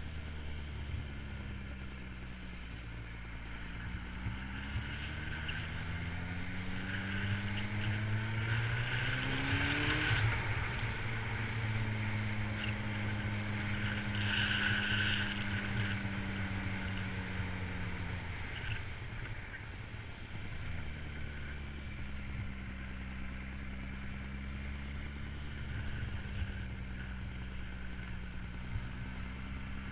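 Vehicle engine heard from an onboard camera while driving a winding road. Its pitch climbs for several seconds, drops back about ten seconds in as if shifting up a gear, holds steady, then falls lower about nineteen seconds in, over steady wind and road rumble.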